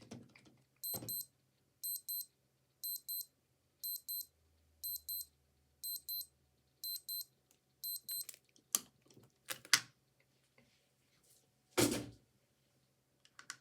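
Old digital watch alarm beeping in quick pairs of short, high beeps, about one pair a second, eight pairs, then stopping. A few clicks and one louder thump follow near the end, like the watch being handled.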